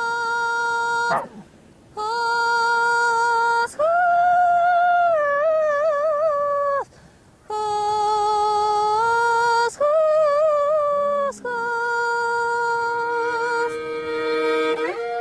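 A woman singing wordlessly in long, high held notes with slight wavering and slides between them. Her phrases are broken by two short pauses. Near the end a second sustained tone joins the voice.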